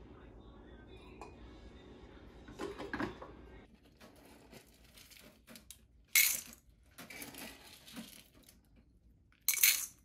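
A drink poured from a glass carafe into a ceramic mug, then dry cat kibble scooped from a tin and poured into ceramic bowls, rattling loudly in two short bursts about six and nine and a half seconds in, with softer rattles between.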